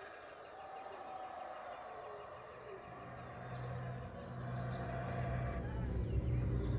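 Tropical forest at dawn, with birds chirping and calling in many short, high notes. A low drone comes in about halfway through and grows louder.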